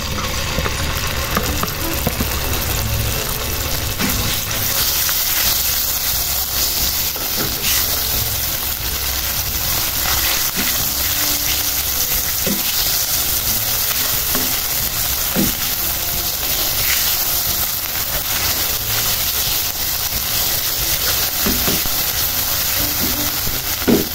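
Ground chili spice paste sizzling steadily in hot oil in a pan, with occasional scrapes and knocks of a spatula stirring it. This is the paste being sautéed until cooked and fragrant.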